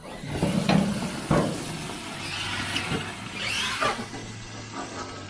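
Gas barbecue grill's lid being lifted open with a clunk about a second in, then meat sizzling over the lit burners.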